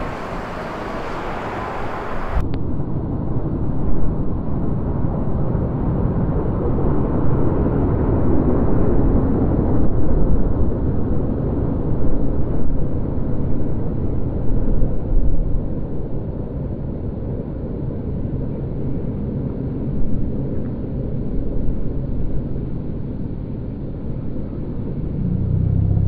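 Steady low rumble of a car's engine and tyres, heard from inside the moving car.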